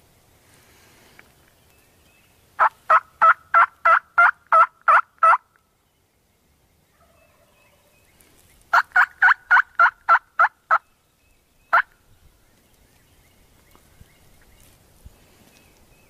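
Turkey yelping: two runs of loud, evenly spaced calls at about three a second, the first of about nine notes and the second of about seven, followed by one lone note.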